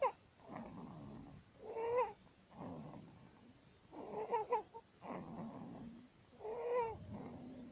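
A newborn's noisy breathing with stridor from laryngomalacia: a short, high-pitched squeaky crow about every two to two and a half seconds, with softer rasping breaths between.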